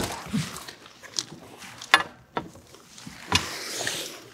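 A tent-trailer bed rafter pole knocking and tapping as it is worked into place under the tent canvas, with the canvas rustling. There are sharp knocks at the start, two close together about two seconds in, and one a little after three seconds, followed by a short rustle.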